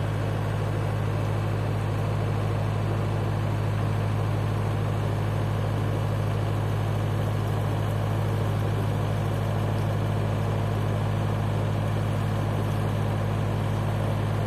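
Narrowboat's diesel engine running steadily under way, a constant low hum.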